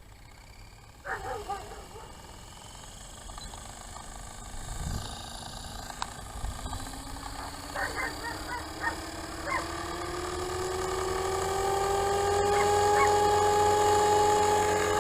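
FORZA450 electric RC helicopter spooling up: a whine rising steadily in pitch and growing louder as the rotor head comes up to speed. The owner traced the abnormal noise during rotation to a partly stripped main gear. Short animal calls come about a second in and several times around eight to ten seconds.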